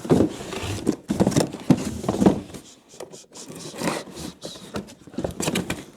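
Cardboard box and packaging being rummaged through by hand: irregular scraping and rubbing with a few knocks.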